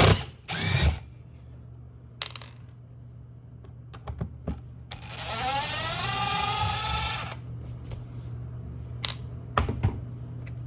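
Power drill running for about two and a half seconds, its whine rising in pitch as it spins up and then holding steady, backing out the screws that hold a stove receptacle to the floor. Scattered knocks and clicks of handling come before and after it.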